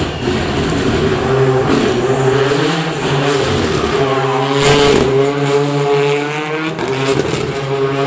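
Renault Clio rally car's engine revving hard as the car passes close by, its note held fairly steady, with a short burst of hiss about four and a half seconds in.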